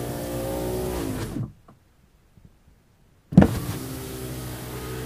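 Car electric power window motor running with a steady whine, dropping in pitch and stopping about a second and a half in. After a pause of nearly two seconds it starts again with a clunk and runs steadily.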